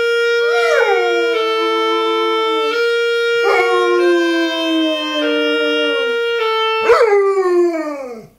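Clarinet playing slow held notes, stepping from one pitch to the next, while a yellow Labrador retriever howls along in three long howls that each slide downward in pitch. The clarinet stops about seven seconds in, and the last howl trails off alone.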